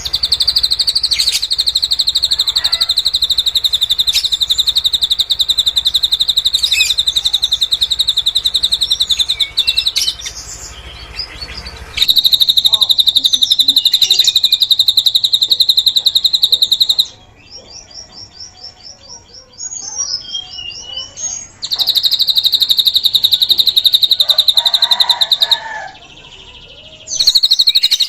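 Drongo singing the cililin song it has learned. It gives long, very fast high trills, each lasting several seconds, broken by short gaps of quieter chirps and whistles.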